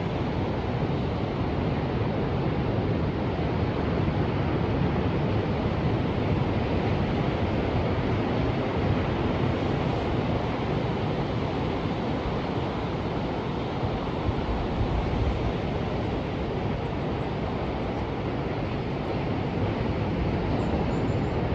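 Ocean surf: a steady, unbroken wash of noise with no separate waves standing out.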